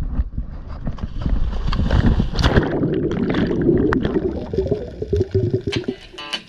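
A diver entering the sea: a splash, then bubbling, rushing water picked up by a camera underwater, fading near the end.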